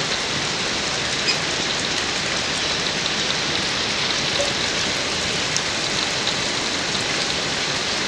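Steady, even hiss of rain falling, with a few faint short high chirps.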